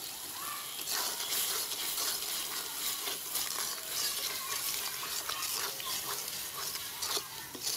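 Metal spoon stirring and scraping a thick masala paste as it fries in oil in a metal kadai, with a sizzle and repeated scraping strokes from about a second in. The masala is at the fried-down stage where the oil separates.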